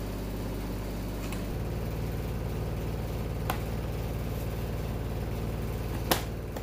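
A steady engine hum, its note shifting about a second and a half in, with two sharp clicks as the plastic top-case mounting plate is handled on the rack, the louder one near the end.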